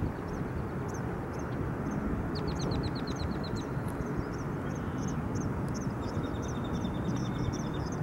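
Small birds calling over a steady low rumble. Short high chips repeat throughout, with a quick trill of about ten notes a few seconds in and a fast thin run of notes near the end.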